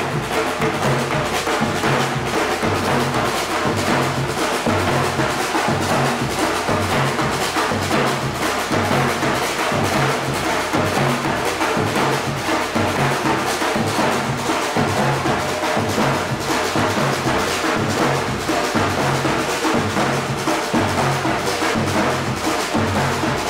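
Batucada drumming: a samba-style percussion group playing a steady, repeating rhythm without a break.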